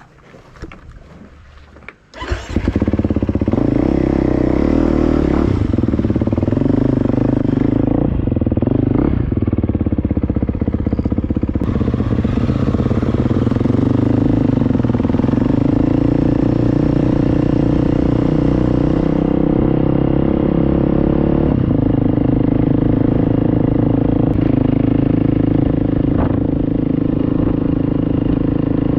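Dual-sport motorcycle engine running as the bike is ridden, coming in loud about two seconds in after a few faint clicks; its pitch rises and falls with the throttle for a few seconds, then holds steady.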